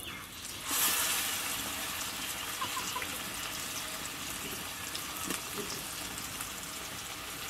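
Marinated chicken leg pieces sizzling as they go into hot oil and ghee in a kadai for deep-frying. The sizzle starts suddenly less than a second in, then carries on as a steady hiss.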